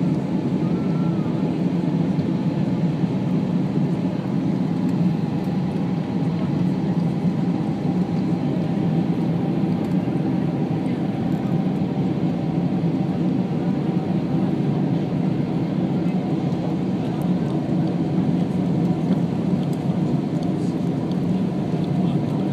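Airbus A320 passenger cabin noise heard from a window seat over the wing: a steady rumble of the jet engines and rushing air as the airliner descends on approach with its flaps extended. Faint steady tones ride over the noise.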